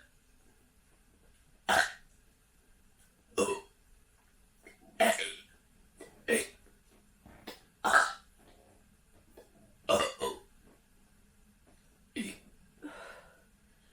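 A person burping in a string of short belches, roughly one every one and a half to two seconds, from the gas of chugged Cherry Pepsi.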